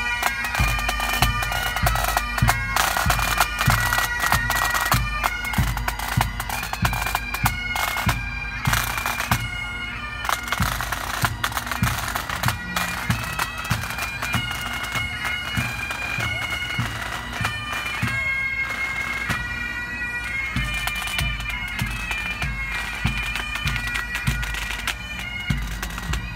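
Pipe band of Highland bagpipes and drums playing a march on the move: the pipes hold steady drones under the melody, and a bass drum beats a steady pulse. The band grows a little fainter as it marches away.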